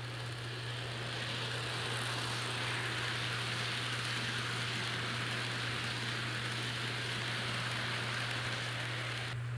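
N scale model freight train, led by a Kato Union Pacific FEF-3 steam locomotive, running past on the track: a steady hissing rattle of small metal wheels on the rails that swells as the cars roll close by and cuts off suddenly near the end, over a steady low hum.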